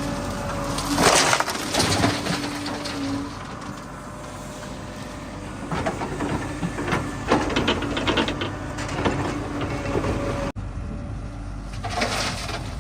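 JCB 3DX backhoe loader at work: its diesel engine runs steadily while loud bursts of crunching and scraping come from the bucket digging and dumping mud, once about a second in, several times in the middle and again near the end.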